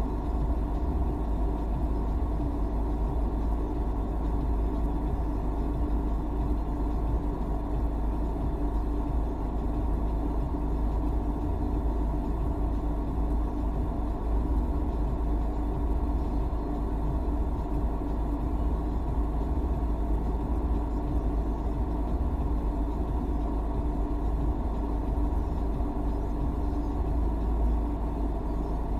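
Car engine idling at a standstill, heard from inside the cabin as a steady low hum.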